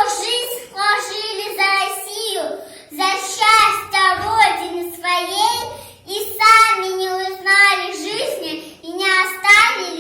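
A young girl singing solo in a clear, high child's voice, holding long, steady notes in phrases with short pauses for breath and no accompaniment.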